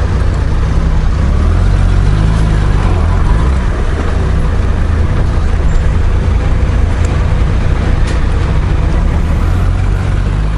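Honda Goldwing GL1500's flat-six engine running as the motorcycle pulls away and rides at low speed, a steady low engine note under a rushing noise over the microphone.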